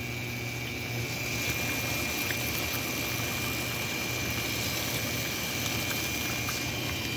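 Hot oil sizzling and bubbling steadily around oliebollen dough fritters deep-frying in a pot.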